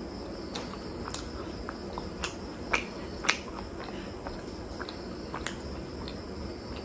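Close-miked eating sounds: irregular wet clicks and smacks of chewing and of fingers picking through thick curry gravy, with two louder snaps a little before the middle. A steady high-pitched hum runs underneath.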